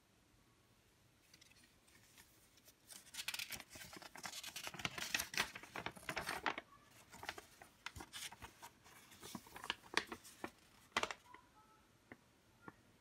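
Irregular crackling and rustling: a dense patter of sharp clicks and scratches that builds about three seconds in, thins to a few separate snaps around ten to eleven seconds, and ends with a couple of faint ticks.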